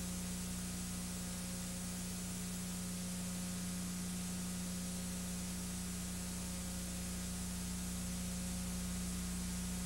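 Steady hiss with a low electrical hum and no other sound: the empty soundtrack noise of a transferred silent home movie.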